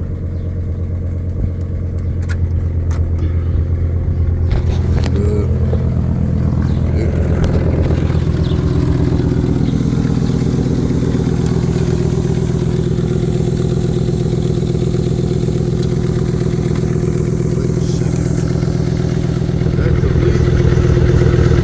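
Ford F350's V10 engine idling steadily, with an exhaust leak that the owner has just noticed.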